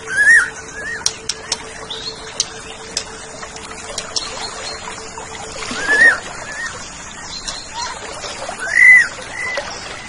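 Orange-headed thrush giving short arched whistled notes in pairs, three times, over a steady background hiss with scattered sharp ticks.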